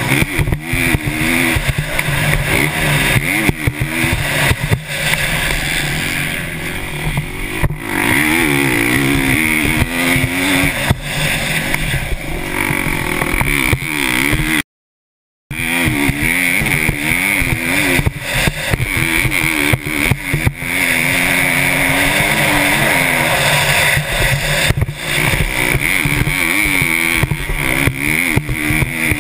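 KTM 350 SX-F single-cylinder four-stroke motocross bike at race pace, the engine revving up and down repeatedly through the throttle and gear changes over jumps and turns. The audio cuts out completely for under a second about halfway through.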